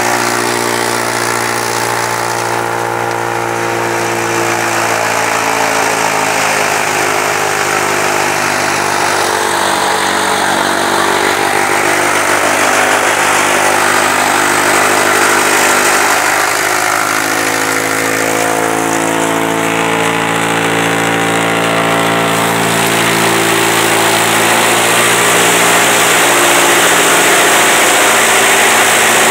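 Tractor-driven silage cutter chopping green fodder: the tractor engine runs steadily under load, its pitch sagging and recovering several times as stalks are fed in, under a loud rushing hiss from the cutter and its blower.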